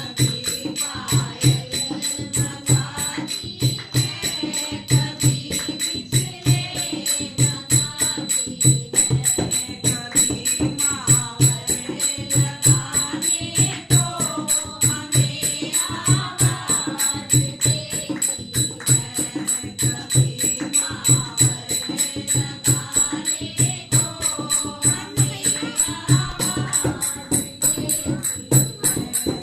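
Hindi devotional bhajan: voices singing over a fast, steady percussion beat.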